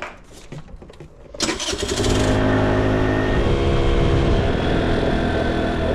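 A few light clicks and knocks, then about a second and a half in a small motor scooter's engine comes in loudly and runs steadily as the scooter is ridden along a road.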